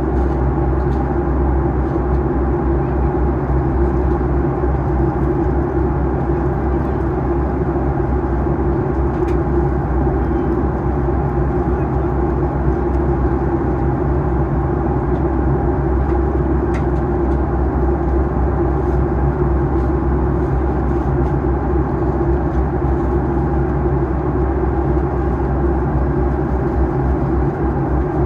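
Steady cabin noise inside a Boeing 737-800 during its descent: a constant rush of airflow over the fuselage and a steady low hum from its CFM56-7B turbofan engines, with a few faint ticks.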